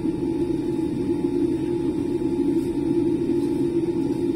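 Steady low rumble heard inside the cabin of a Boeing 787-8 taxiing after landing: engine and rolling noise, with a faint steady whine above it.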